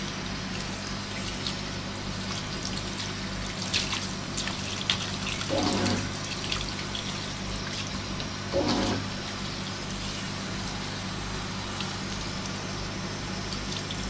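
Water running from a hand-held shower over a wet dog standing in a bathtub, a steady spray, with a couple of short louder noises about six and nine seconds in.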